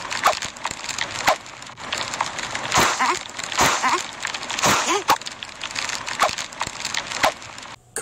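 Cartoon sound effects from a phone's augmented-reality animation: a steady crackle and hiss, with short squeaky calls that rise and fall about once a second.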